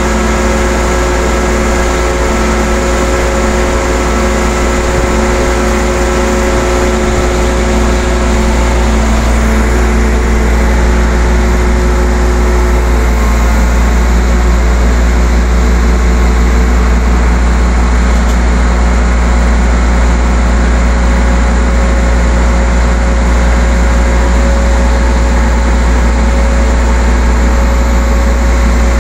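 Heavy diesel engine running steadily with a deep rumble and a hum of several steady tones. About halfway through, its note shifts and it gets a little louder.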